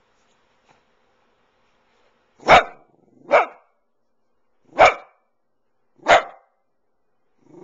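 Dachshund barking four sharp times, starting about two and a half seconds in, each bark about a second or so apart.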